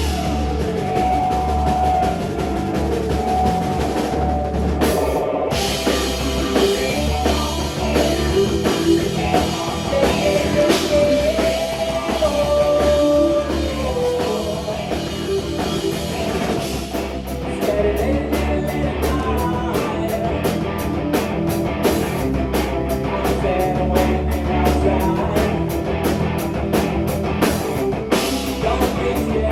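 Live rock band playing loud: a drum kit keeping the beat under guitar, with a fast, even cymbal pattern coming in about two-thirds of the way through.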